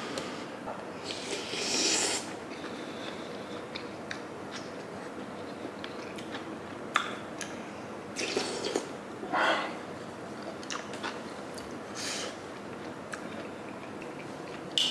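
A person eating sundae gukbap close to the microphone: wet chewing with several short, noisy breaths or slurps, and a few sharp clicks.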